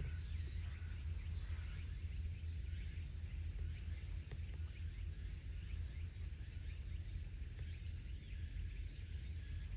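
Outdoor evening ambience by the sea: a steady low rumble of wind on the microphone under a continuous high hiss of insects, with a few faint bird chirps.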